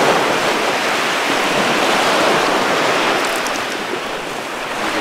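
Small ocean waves breaking and washing up on a sandy shore: a steady rushing surf.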